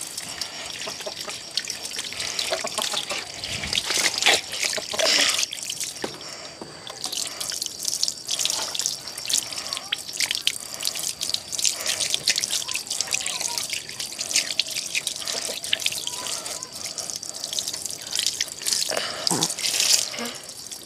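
Running water trickling and splashing, with many irregular drips and splashes.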